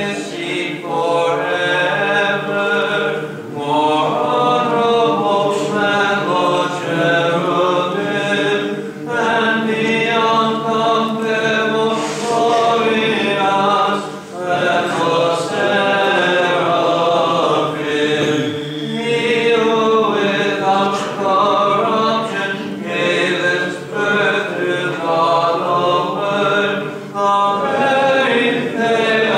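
Orthodox church choir chanting a Byzantine hymn a cappella, the melody moving over a steady held drone note.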